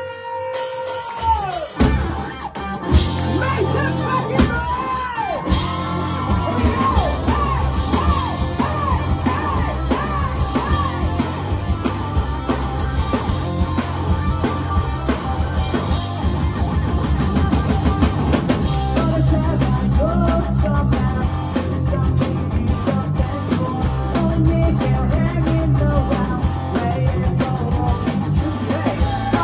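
Live rock band playing: electric guitars, bass and drum kit, with a singer singing and shouting over them. A held note opens, then the full band comes in about two seconds in and drives on loudly.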